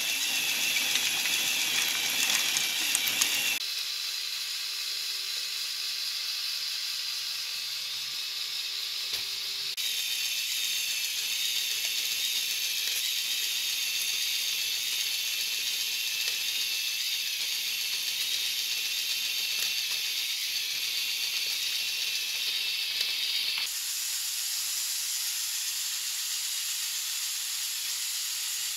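A steady hiss, mostly high-pitched, with no clear mechanical rhythm. It is louder and rougher for the first few seconds, then changes character abruptly three times.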